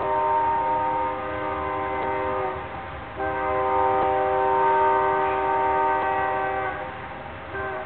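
Union Pacific SD70M locomotive's multi-chime air horn sounding long, steady chords: one blast ends about two and a half seconds in, a second runs for about three and a half seconds, and a third starts near the end. A low rumble from the passing train lies beneath.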